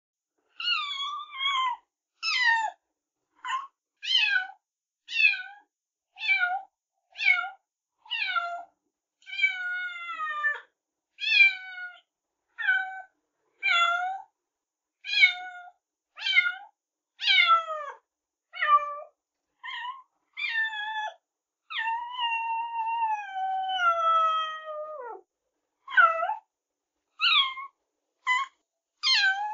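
Domestic cat meowing over and over: short separate meows at about one a second, most of them falling in pitch, with clean silent gaps between them. About three-quarters of the way through comes one long drawn-out meow that slides steadily down.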